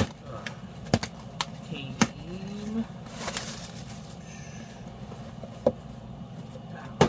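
Clear plastic packing wrap rustling and crinkling as it is pulled out of a parcel, with sharp taps and knocks from handling the box, several in the first two seconds and one near the end.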